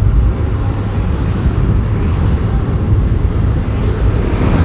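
Steady riding noise on a moving motorcycle: a low wind rumble on the microphone, with the engine and traffic underneath.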